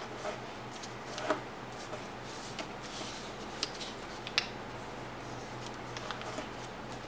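Origami paper crackling and ticking as fingers fold and crease a paper ninja star, in scattered short clicks, the sharpest a little over a second in and about four and a half seconds in. A steady low hum runs underneath.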